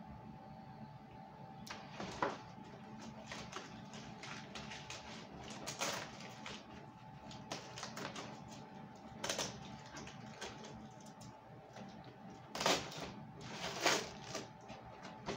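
Packaging being handled by hand: paper, cardboard and plastic rustling, with scattered small clicks and two louder crinkles near the end.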